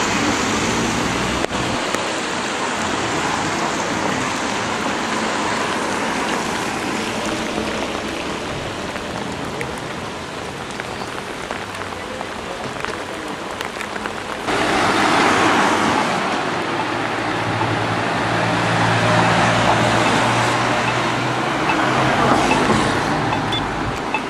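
Steady rain with traffic on a wet street. About fourteen seconds in the traffic noise gets abruptly louder, with tyre hiss and a low engine hum from vehicles close by.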